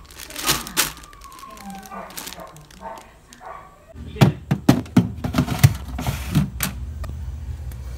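Clear plastic fridge crisper drawer and plastic-bagged vegetables being handled, with rustling and light knocks, then a run of loud plastic knocks and clatters about halfway through as the drawer is pushed back into the fridge.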